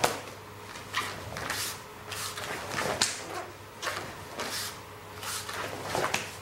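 Repeated high roundhouse kicks in a white cotton karate uniform: four sharp cracks, as the bare foot slaps the partner's raised hand and the uniform snaps, with swishes of cloth between them.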